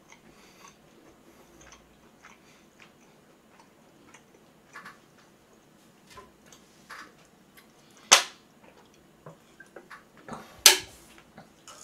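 Scattered small clicks and knocks of hands handling dishes or food, with two sharp, much louder clicks about eight seconds and ten and a half seconds in.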